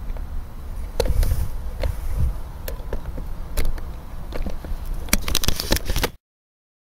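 Outdoor wind buffeting the microphone as a low, uneven rumble, with scattered sharp clicks and knocks and a quick run of clicks near the end; the sound cuts off suddenly into silence about six seconds in.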